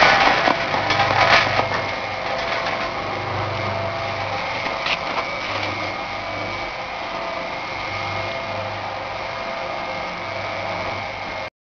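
Nut roasting machine running, a steady motor hum with a constant high whine. Roasted nuts rattle out of its discharge chute into a cardboard box during the first second or so. The sound cuts off abruptly near the end.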